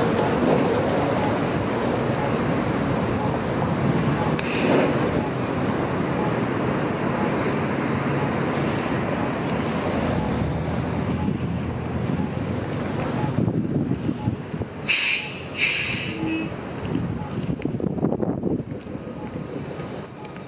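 Articulated city bus pulling in and idling at a stop, its engine running steadily, with a short hiss of air about four and a half seconds in and two louder air hisses about fifteen seconds in.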